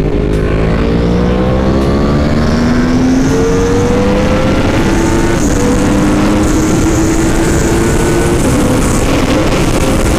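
2018 Yamaha R1's crossplane inline-four engine under hard acceleration. Its pitch climbs slowly and drops briefly at upshifts about two, five and eight seconds in, over a loud rush of wind at high speed.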